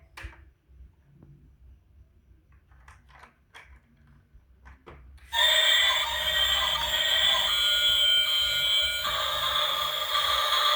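A few faint clicks, then about five seconds in a loud, shrill electronic tune starts abruptly, its held notes changing in steps.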